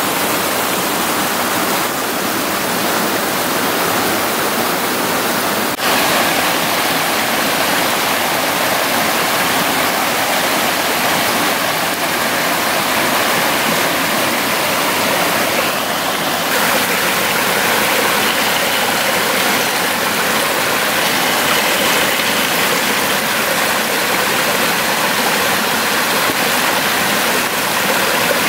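Steady rush of a stream running over rocks, an even hiss-like roar of water, with a brief break about six seconds in.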